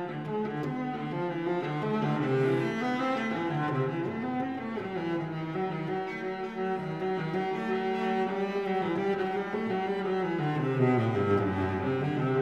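Background music led by low bowed strings, with slowly moving sustained notes.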